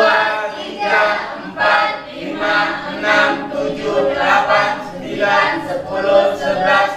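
Group of women and men counting aloud together in Indonesian, in unison, one number roughly every two-thirds of a second.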